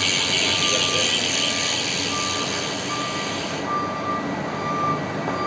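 NOVATEC bicycle freehub ratchet running as a fast high-pitched clicking buzz while the rear wheel spins freely, thinning out abruptly about three and a half seconds in. A beep repeats about once a second behind it, like a vehicle's reversing alarm.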